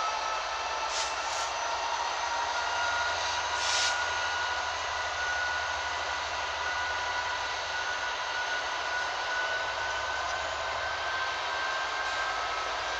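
Class 66 diesel-electric locomotive with its two-stroke V12 engine working under power as it pulls away, a steady rumble and rush with a whine slowly rising in pitch as it gathers speed. Brief high hisses about a second in and near four seconds.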